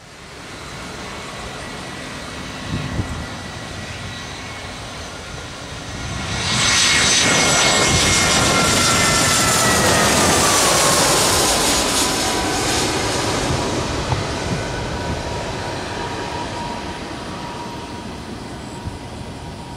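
ANA narrow-body twin-jet airliner passing low overhead on final approach, gear down. Its engine noise swells sharply about six seconds in to a loud rush, the engine whine gliding down in pitch as it goes over, then fades slowly.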